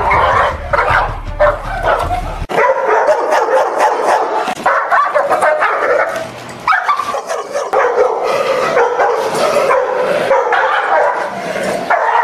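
Dogs barking repeatedly and aggressively during bite-sleeve protection training, with a low rumble under the first couple of seconds that stops abruptly.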